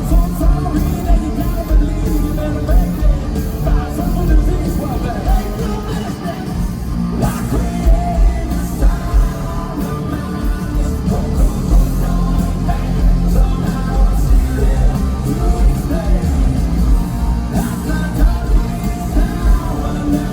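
Rock band playing live in an arena, loud guitars and drums under a singer, with a steady pounding beat.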